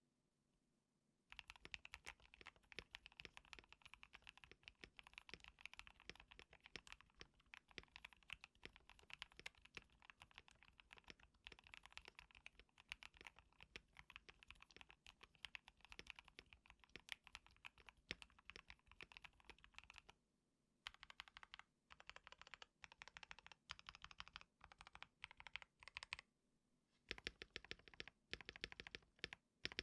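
A KBD67 Lite mechanical keyboard fitted with frankenswitched Epsilon 'mix' switches, with case foam and car foam, being typed on in a sound test. After about a second there is fast continuous typing. Past the middle come shorter groups of keystrokes with brief pauses, and near the end separate, evenly spaced keypresses.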